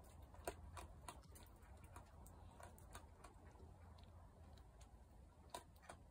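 Faint, irregular clicks and crunches of a raccoon chewing food off the gravel, with a louder click about half a second in and another near the end.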